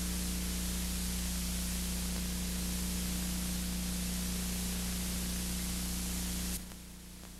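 Steady hiss with a low electrical hum from a blank stretch of videotape. It drops suddenly to a quieter hiss about six and a half seconds in.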